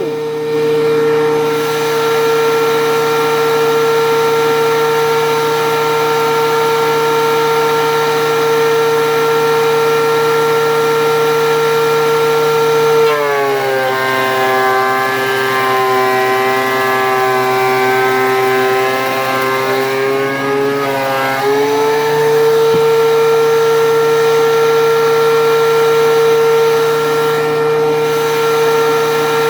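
DeWalt DW735 13-inch thickness planer running with a steady high whine. About halfway through, its pitch drops and the sound turns rougher for about eight seconds as an oak board feeds through and the cutterhead takes a cut. The motor then climbs back to its unloaded speed.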